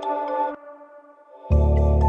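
Background music. One track cuts off about half a second in, leaving a brief lull with a fading tone, and a louder track with heavy bass starts about a second and a half in.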